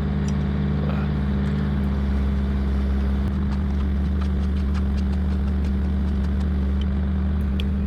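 Mini excavator's diesel engine running steadily at a constant pitch while it works an auger, with a few faint ticks over it.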